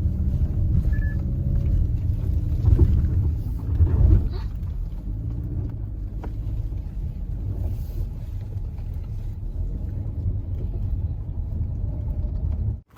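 Car rumbling at low speed as it is manoeuvred into a parking spot, with two louder knocks about three and four seconds in; the sound cuts off suddenly near the end.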